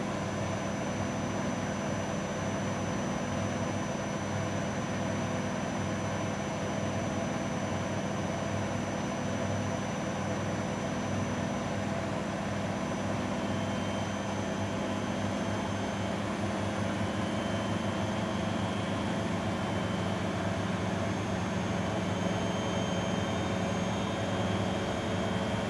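Grundig Mini 14 washing machine running with a steady motor hum and whir.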